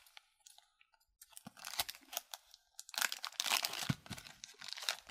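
Foil wrapper of a hockey card pack crinkling and tearing as it is pulled open by hand, in two spells of crackly rustling that start about a second and a half in.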